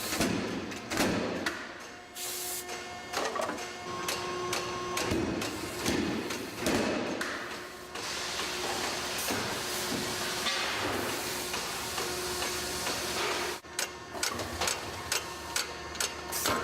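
Factory machinery at work: irregular clanks and knocks over a faint steady hum, with a steady hiss through the middle that cuts off sharply.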